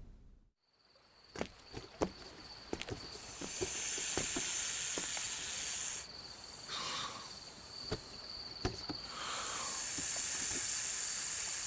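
Two long stretches of loud hissing, each starting with a short falling whoosh. Under them run a faint steady high-pitched chirring and scattered light taps.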